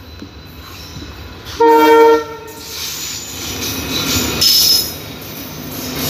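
A WDP-4D diesel locomotive sounds one short horn blast about a second and a half in, then runs past with its engine and wheels on the rails growing louder, a brief high squeal as it goes by. The LHB coaches then roll past with steady rail noise.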